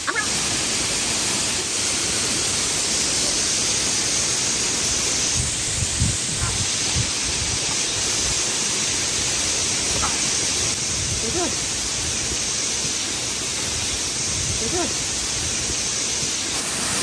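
Steady rushing of Rainbow Falls, a waterfall pouring down a rock face.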